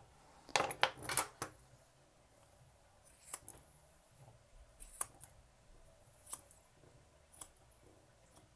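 Sharp grooming shears snipping through a Maltese's long white coat as its bottom edge is trimmed: single crisp snips about a second or so apart. A quick run of louder metallic clinks comes about a second in.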